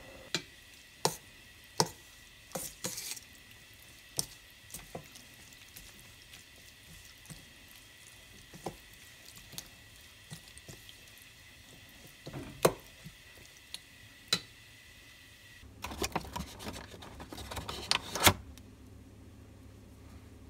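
A metal spoon stirring a thick chili seasoning in a stainless steel bowl, with scattered sharp clinks and soft scraping against the bowl. About three-quarters of the way through, a denser run of clattering and rustling takes over briefly.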